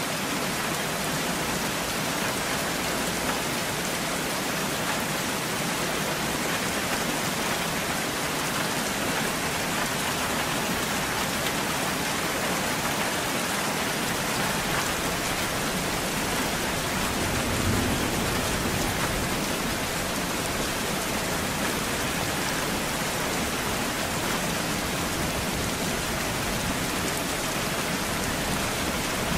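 Steady rainfall, an even hiss of drops falling on surfaces, with a faint low rumble coming in about halfway through.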